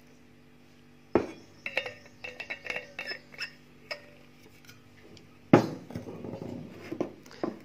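A knock, then a run of ringing metallic clinks as an insulated steel water bottle is handled over a small steel bowl and its metal cap worked back on, then a heavier thump on the table about five and a half seconds in, with a few lighter clicks near the end.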